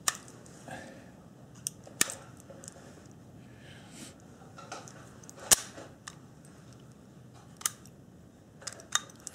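Sharp metallic clicks and clacks of a P-64 pistol being loaded and readied by hand, a handful of separate strokes, the loudest about five and a half seconds in.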